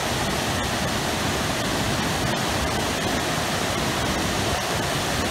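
Waterfall pouring into a rocky plunge pool: a steady, unbroken rush of falling water.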